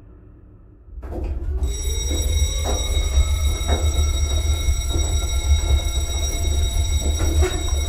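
Sound effects from the music video's soundtrack: a deep steady rumble with a high ringing tone over it, coming in about a second in, with a faint slowly rising tone and a few soft knocks.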